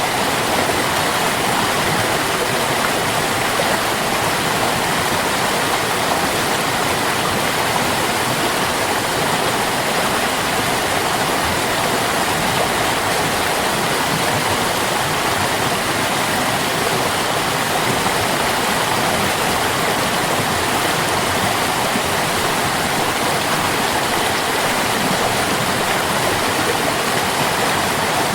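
Stream water running steadily: a constant, even splashing hiss with no breaks or changes.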